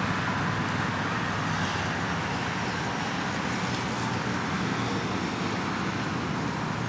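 Steady road traffic noise, with cars passing on a busy road.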